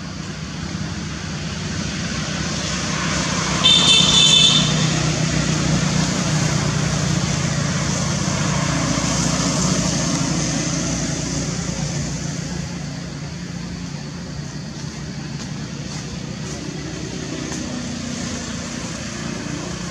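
A road vehicle's engine passing, swelling over the first few seconds and then slowly fading, with a short shrill sound about four seconds in.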